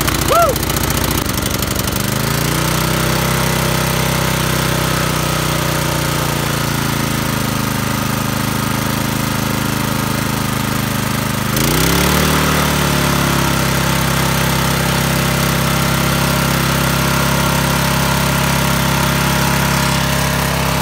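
Small gas engine of a Harbor Freight trash pump running steadily, back in running order after being swamped by floodwater. Its speed sags slightly about two seconds in, then rises quickly to a higher steady speed a little past halfway. There is a brief high chirp near the start.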